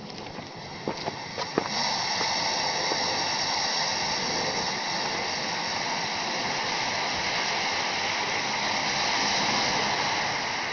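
Ammonium dichromate volcano burning: a few sharp pops in the first two seconds, then a steady fizzing hiss as the orange crystals decompose.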